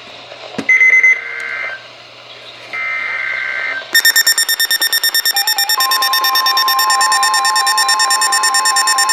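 Emergency Alert System activation on NOAA Weather Radio, announcing a special marine warning. Two bursts of the SAME digital header, each a harsh warbling data squawk about a second long, then from about four seconds in a fast-pulsing electronic alarm beep, joined shortly after by a steady alert tone.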